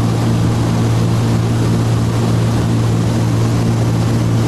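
Cessna T303 Crusader's twin turbocharged six-cylinder piston engines and propellers in cruise, heard inside the cabin as a steady, even low drone.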